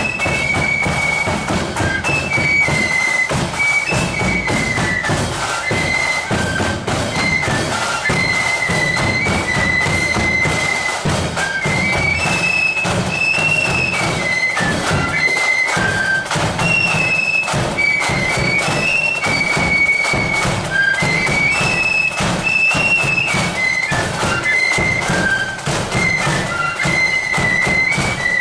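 Marching flute band playing a tune together: a high flute melody over steady drum beats.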